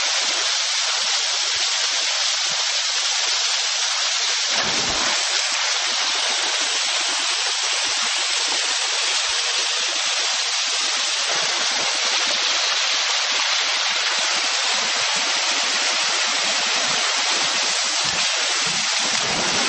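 Steady hiss of water pouring down a pool's rock waterslide and splashing into the pool.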